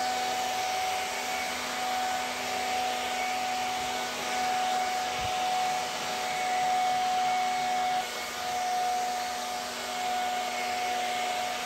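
Pressure washer running steadily with a constant whine, its jet spraying water onto a concrete floor along a joint.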